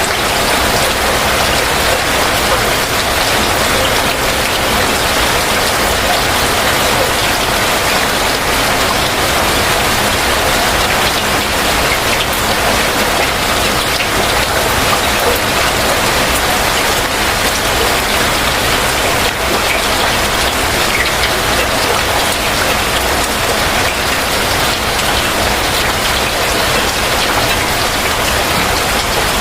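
Heavy rain falling steadily in a continuous, even downpour.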